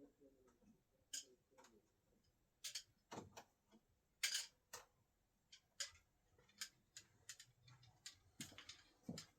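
Faint, irregular clicks and light knocks, about a dozen, the loudest about four seconds in: steel flathead screwdrivers being handled and thrown.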